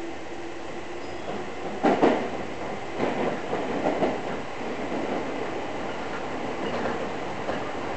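Toei Shinjuku Line subway train running through a tunnel, heard from inside the car: steady running noise, a loud clatter of wheels over rail joints about two seconds in, and a few more knocks a second or so later.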